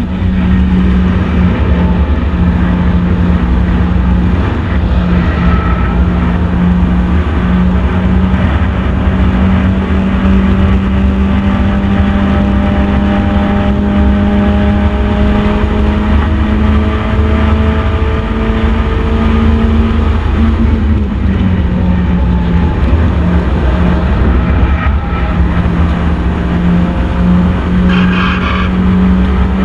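First-generation Mazda MX-5 race car's four-cylinder engine running hard at high, nearly steady revs, heard on board with heavy wind and road rumble. The note drops slightly about two-thirds of the way through, then builds again.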